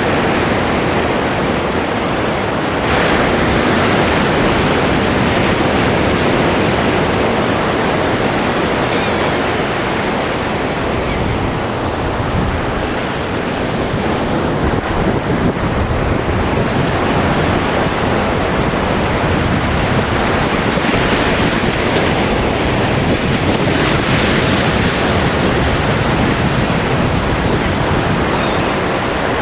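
Ocean surf: waves washing and breaking in a continuous rush. It swells about three seconds in, eases off in the middle and swells again after about twenty seconds.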